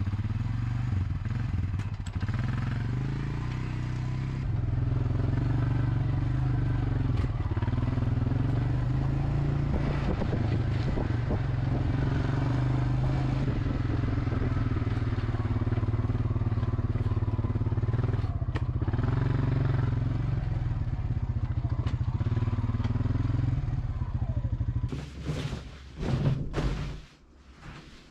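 Four-wheeler ATV engine running steadily while being ridden along a trail, a little louder from about four seconds in. It stops near the end, and a few thuds and knocks follow.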